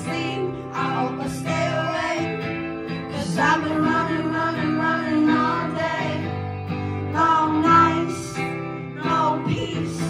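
Live music: a woman singing into a microphone, with acoustic guitar accompaniment.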